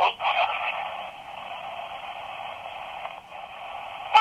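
Spirit box (S Box) sweeping radio: a steady, thin hiss of static, broken by short choppy bursts of radio sound at the very start and again near the end.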